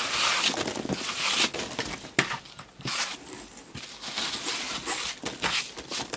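Polystyrene foam packing peanuts being swept up and gathered by hand on a tabletop, rustling irregularly with a few small knocks.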